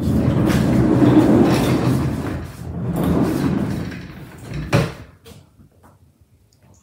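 Office chair casters rolling over a hard floor as the chair is pushed along, in two long rumbling runs, followed by a single sharp knock a little before five seconds in.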